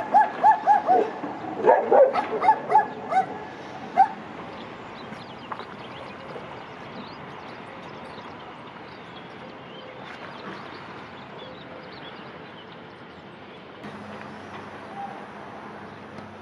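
A dog yipping and barking in a quick run of about nine short, high calls over the first four seconds, then falling quiet, leaving a steady low background.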